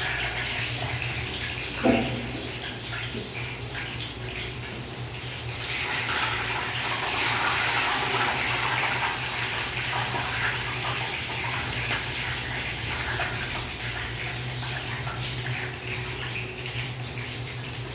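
Water running steadily, louder from about six seconds in, with a single knock about two seconds in.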